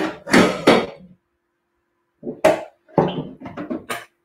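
Kitchen utensils and dishes knocking and clattering as a counter is cleared after cooking, with a sharp knock about two and a half seconds in followed by a quick run of smaller knocks.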